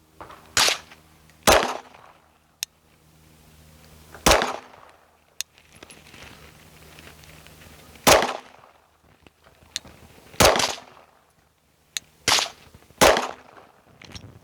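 Gunshots on a shooting range: seven loud shots at irregular spacing, each with a short echo. Fainter sharp cracks from other shooters fall between them, over a steady low hum.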